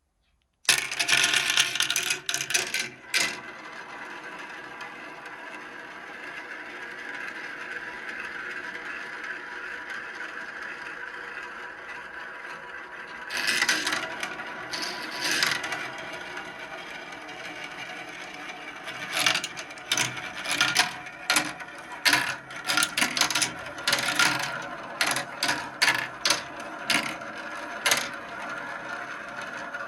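Several marbles racing down a marble run track: loud clattering about a second in, then a steady rolling rumble, and from about halfway on, many sharp clacks as the marbles drop and knock along the track.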